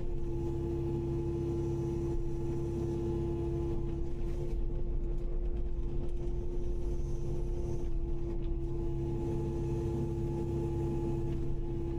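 Kubota KX080-5 excavator's diesel engine and hydraulics running steadily, a constant hum with a low rumble beneath it.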